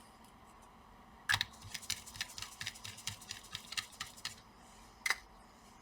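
Rapid light clicking and ticking of a screwdriver turning small screws into a laptop's heatsink, a run of sharp clicks for about three seconds, then one more click near the end.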